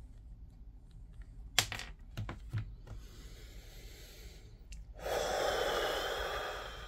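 Small plastic clicks and handling noise as an action figure's hand is pushed onto its wrist peg, the sharpest click about one and a half seconds in. From about five seconds a steady hiss sets in.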